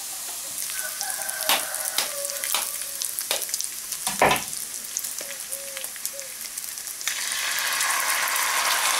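Diced pork jowl fat sizzling in a cast-iron skillet, with scattered sharp crackles and a strong knock about four seconds in as a goose egg is cracked against the pan. About seven seconds in the sizzle turns suddenly louder as the egg goes into the hot fat.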